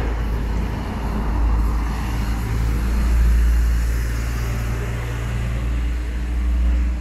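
Motor vehicle engine running close by amid city street traffic, a steady low rumble that swells to its loudest about three seconds in and then eases off.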